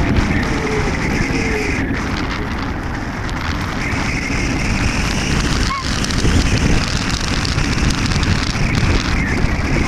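Wind rushing over the microphone of a camera riding on an Easystar 2 RC plane in flight, with the steady whine of its electric motor and pusher propeller underneath.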